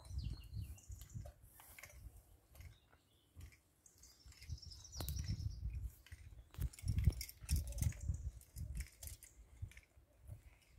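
Quiet outdoor ambience: scattered small clicks and rustles over an uneven low rumble, with a few short high chirps in the first second.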